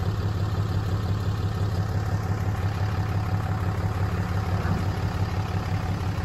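Pickup truck's engine running with a steady low drone as the truck pulls slowly forward, away from a camper hitch.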